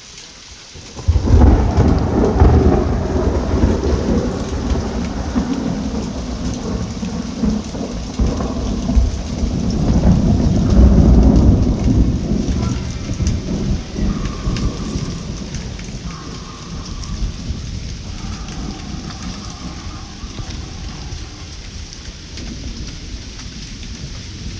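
Thunder rumbling over steady rain. A long rumble starts about a second in, swells again around ten seconds in, then fades, leaving the rain.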